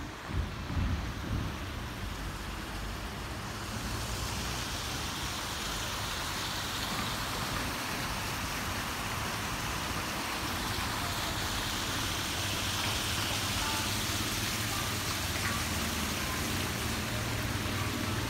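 Steady hiss of rain falling on a city street, with a low hum of distant traffic underneath. A few low bumps come in the first second or so.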